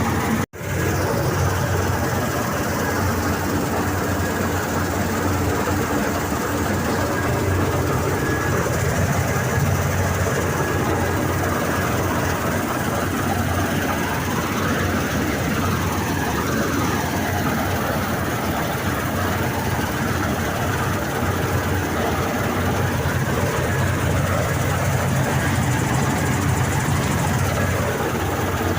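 Wheat-harvesting machinery running steadily: a heavy engine drone with continuous mechanical rattle. The sound cuts out for an instant about half a second in.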